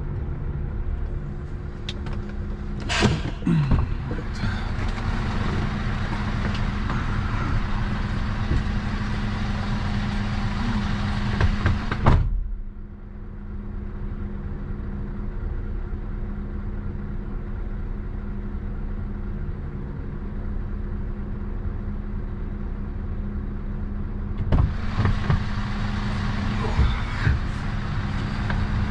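Lorry engine running steadily with a low hum, heard from inside the cab while driving, with a few knocks and rattles. About halfway through, the higher hiss drops away suddenly and comes back some twelve seconds later.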